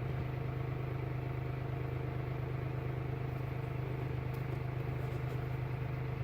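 A steady low hum with a buzzing edge, unchanging in pitch and level.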